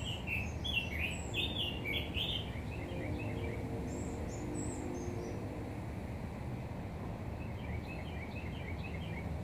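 Songbirds calling in quick series of short chirps, a burst in the first two seconds, higher notes about four seconds in and a fainter series near the end, over a steady low background rumble.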